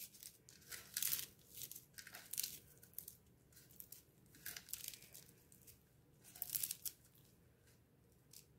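Fried papad (appalam) pieces and bread crumbs crackling and rustling faintly as a hand crushes and mixes them on a plate, in irregular bursts that die away near the end.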